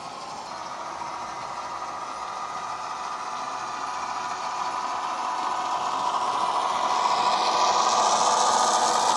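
Recorded EMD 8-645 diesel engine sound from a DCC sound decoder, playing through the small speaker of a model Irish Rail 181 class locomotive. It runs steadily and grows louder as the model approaches and passes close by near the end.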